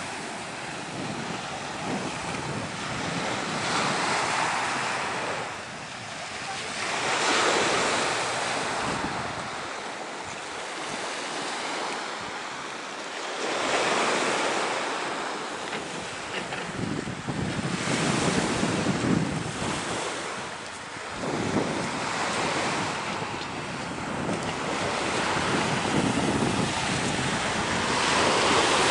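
Small Mediterranean waves breaking and washing up a pebble beach, the surf swelling and fading every few seconds, with wind buffeting the microphone.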